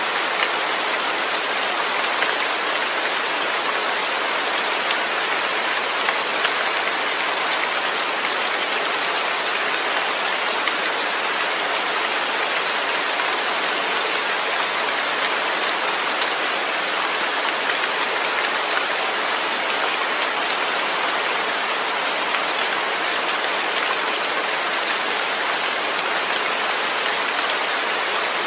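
Steady rain falling without thunder: an even, unbroken hiss.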